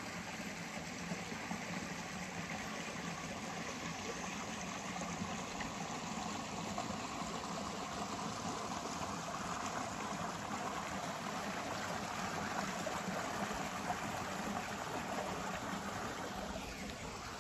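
Rocky mountain stream running over and between boulders: a steady sound of flowing water.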